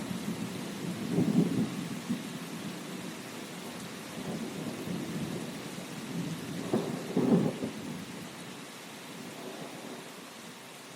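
Steady rain with rolling thunder: two rumbles, about a second in and again about seven seconds in, then the thunder dies away and only the rain hiss remains near the end.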